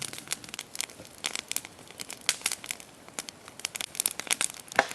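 Campfire crackling, a dense run of irregular sharp snaps and pops.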